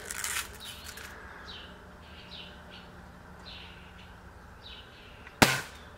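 A small bird chirping over and over, short falling chirps about once a second. A brief rustle sounds in the first second. About five and a half seconds in comes one sharp crack from a Daisy Buck BB gun being fired, the loudest sound.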